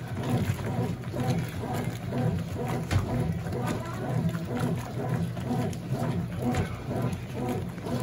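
Consul CWS12 12 kg washing machine running a jeans pre-wash: a steady low rumble with water and clothes churning and many irregular small knocks and clicks.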